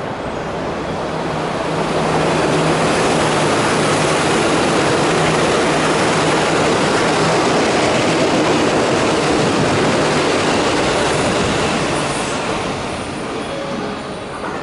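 JR West 221 series electric train running through the station without stopping: the rumble of wheels on rails swells over the first two seconds, holds steady for about ten seconds as the carriages pass close by, then fades. A low steady hum runs under the rumble for the first several seconds.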